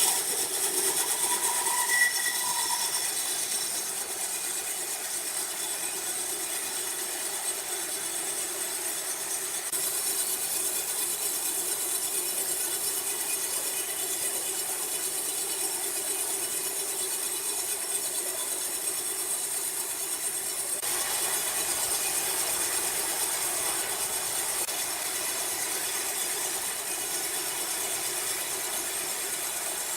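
Sawmill saw running steadily: a constant mechanical hum with a hiss over it.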